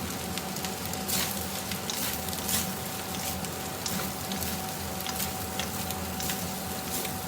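Fried rice sizzling steadily in a hot pan, with scattered sharp clicks.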